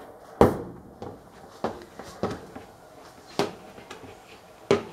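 Potato masher pressing down through hard-boiled egg yolks in a plastic mixing bowl, knocking against the bowl with each stroke: about six irregular knocks, the first the loudest.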